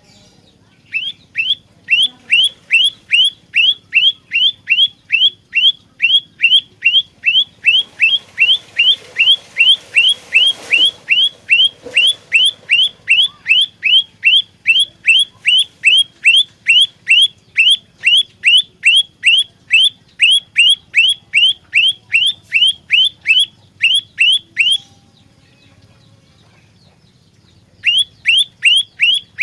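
Olive-backed tailorbird singing a long run of identical loud, sharp downslurred notes, nearly three a second. It pauses for about three seconds near the end, then starts again.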